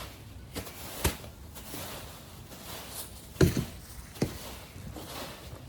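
A few scattered knocks and clatters of things being handled, the loudest about three and a half seconds in and another just after four seconds, over a low background with no engine running.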